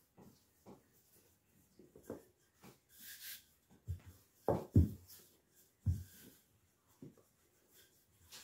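Wooden rolling pin rolling out dough on a floured countertop: irregular soft thumps and knocks as the pin is pressed, rolled and set back onto the dough, with a brief rubbing swish a little past three seconds. The loudest knocks come as a close pair about halfway through and another soon after.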